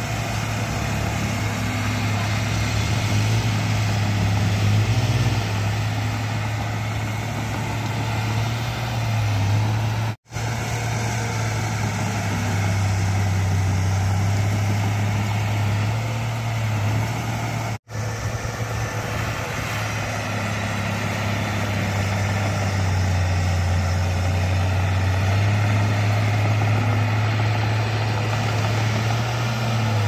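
Komatsu crawler bulldozer's diesel engine running under load as it pushes soil, a steady low drone whose note dips and rises a little, with two very short dropouts.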